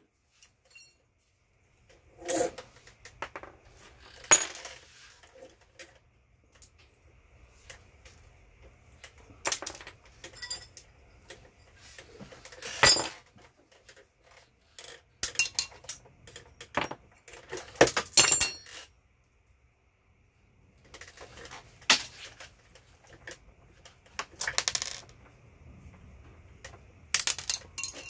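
Irregular metallic clinks and knocks of tools and small metal parts on a work table as a massager's cast aluminum case is taken apart. The sharp clicks come singly and in quick clusters, with a brief quiet pause about two-thirds of the way through.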